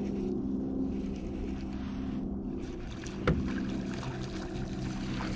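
A boat motor running with a steady low hum, and a single sharp click a little past three seconds in.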